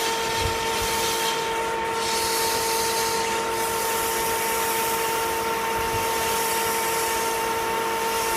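Metal lathe running at a steady speed, with a steady high whine and a rough hiss above it, while a hand-held deburring tool works the edge of a spinning cold-rolled steel part.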